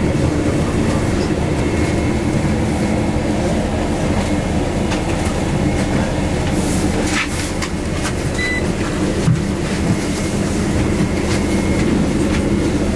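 Steady low rumble and rattling of a moving road or rail vehicle heard from inside the cabin, with a short high beep about eight seconds in.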